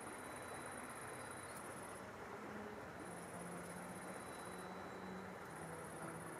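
High-pitched insect trill in bouts of about one and a half seconds separated by pauses of about a second, over a steady low hiss.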